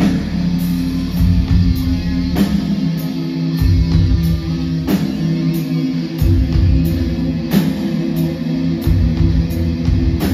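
Loud live electro-industrial music with heavy sustained bass notes and a hard hit about every two and a half seconds, heard from within the audience.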